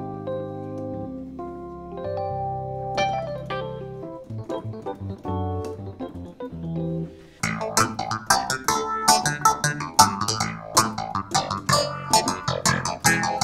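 Electric piano patch played from a MIDI keyboard controller: slow held chords at first, then about halfway through the playing turns to a fast run of louder, brighter, sharply struck notes.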